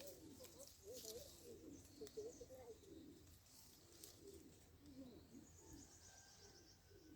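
Faint, low cooing bird calls: many short, wavering notes, one after another, with a brief fast high chirping partway through.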